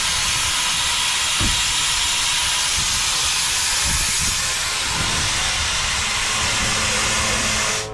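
Miniature steam traction engine venting a jet of steam: a steady hiss.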